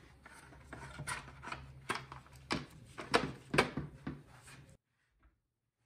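Chainsaw parts being handled during reassembly: a string of light clicks, knocks and scrapes of plastic covers and metal parts against each other and the bench, cutting off suddenly about five seconds in.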